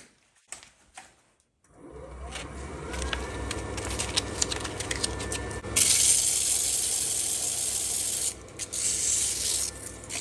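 A small wood lathe starts about two seconds in and spins up with a rising whine and a steady low hum. Then, from about six seconds, sandpaper is pressed against the spinning epoxy-and-wood duck call blank: a loud, steady rubbing hiss that dips briefly near the end.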